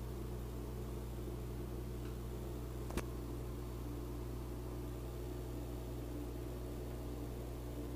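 Steady low hum with a light hiss, broken once about three seconds in by a single sharp click.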